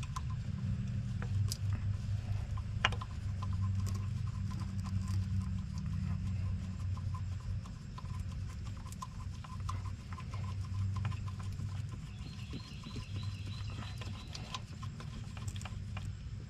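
Light, irregular metallic clicks and taps as a belt-tensioner bolt is lined up and threaded in by hand, over a steady low background hum.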